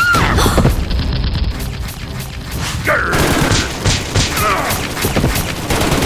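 Rapid gunfire with booms mixed in, many shots in quick succession: dubbed-in gunfire sound effects for a Nerf blaster battle.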